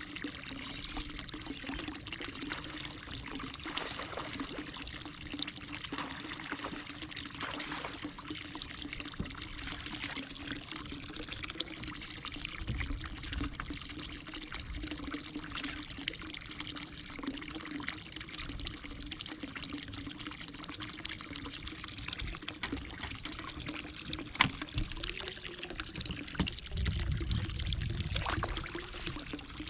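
Water pouring and trickling steadily over a steady low hum, with one sharp click late on.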